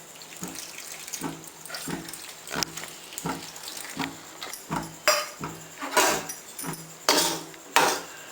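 Tamarind water being poured into a pot of boiled vegetables, splashing and trickling, with louder splashes in the second half. A soft low pulse repeats about every two-thirds of a second underneath.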